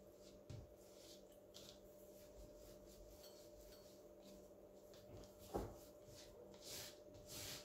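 Faint sounds of hands rubbing a dry spice rub into a raw pork loin: soft scattered rustles over a steady low hum, a dull knock about five and a half seconds in, and two short hissy rustles near the end.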